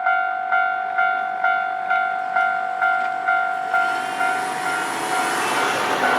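Japanese level crossing warning bell ringing a steady clang about twice a second, with a train running over the crossing from about four seconds in, its rushing noise growing loud enough to swamp the bell near the end.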